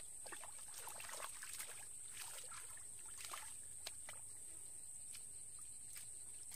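Hands splashing and sloshing in shallow muddy water while groping for fish, with a run of splashes in the first few seconds and then sparser slaps and drips. A steady high-pitched drone sits under it all.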